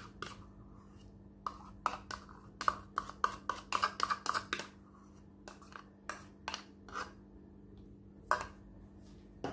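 Metal spoon scraping and tapping against a plastic measuring cup and bowl while scooping out thick fresh cream: a run of quick clicks and taps, thickest from about one and a half to four and a half seconds in, sparser after.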